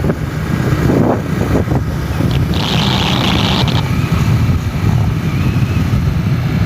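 Steady low rumble of a vehicle under way, with wind buffeting the microphone, and a brief hiss about two and a half seconds in.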